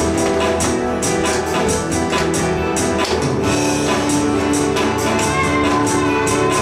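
Live worship band music with guitars and a steady percussive beat.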